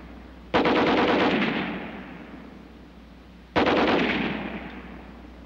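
American .30-calibre Browning heavy machine gun firing two short bursts of automatic fire about three seconds apart. Each burst starts sharply and trails off in a long fading echo.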